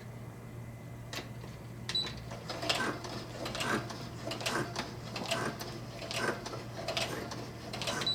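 Brother SE-400 computerized sewing machine stitching through nylon strap webbing in short runs, about one burst of stitching a second from a few seconds in, while the seam is worked back and forth. Two short high beeps, one about two seconds in and one near the end.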